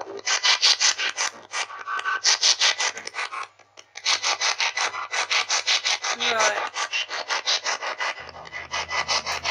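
Ghost-hunting app's spirit-box sweep: rapid, evenly spaced bursts of static, about seven a second, broken by a brief gap and a few short warbling fragments.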